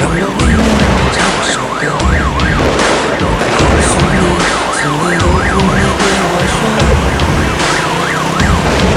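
A siren-like electronic wail whose pitch swings up and down two to three times a second. Scattered sharp cracks of firecrackers and a heavy low rumble run underneath it.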